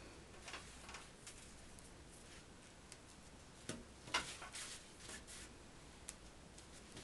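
Faint, scattered light clicks and rustles of straight pins being picked from a pile and fabric being handled while a chiffon strip is pinned onto taffeta, with the sharpest click about four seconds in.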